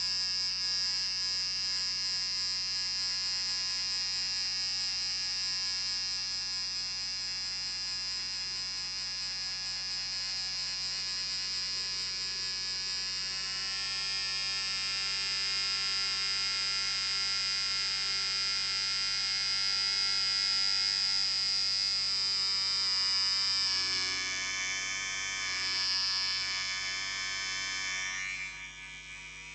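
Electric beard trimmer running with a steady high buzz. Its tone shifts about halfway through, wavers near the end and dips briefly just before the end.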